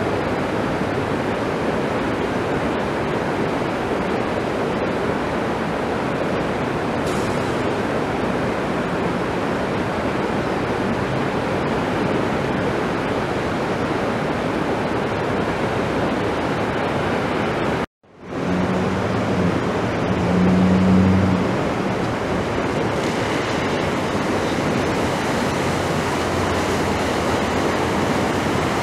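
Floodwater rushing steadily across a road, a constant hiss of moving water. The sound cuts out abruptly for a moment about two-thirds of the way through, then a low vehicle engine hum joins the water for a few seconds.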